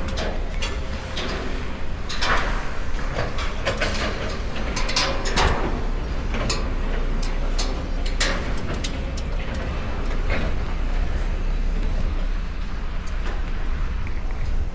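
Steady low rumble with scattered sharp clicks and knocks throughout.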